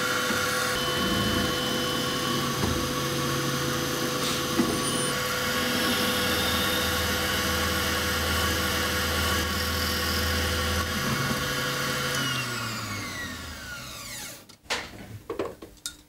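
Drilling machine boring tone holes in a wooden clarinet body: the motor runs steadily, then winds down with a falling pitch about twelve seconds in, followed by a few knocks.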